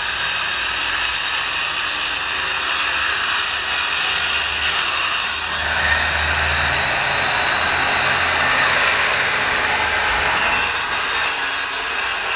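Electric angle grinder with a cutting disc sawing through a concrete paving block: a steady motor whine over continuous gritty cutting noise, which turns duller a little past halfway.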